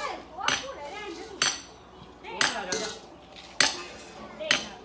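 Five hammer blows, about one a second, each a sharp strike with a brief metallic ring.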